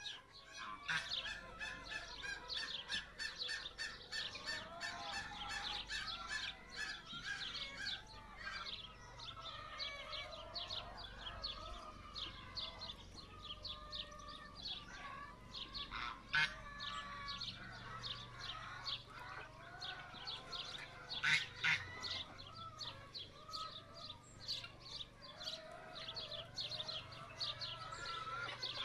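Indian Runner ducks calling and quacking, with a fast, steady high chirping at about five a second throughout. Two louder, sharp calls stand out about halfway through.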